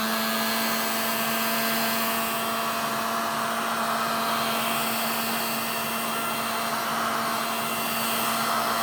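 Heat gun running steadily, a motor hum over the hiss of blowing air. It is heating a phone's rear glass to soften the adhesive beneath.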